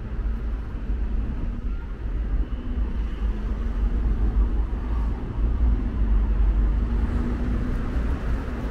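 City street traffic: a steady low rumble of road vehicles with a faint steady engine hum underneath.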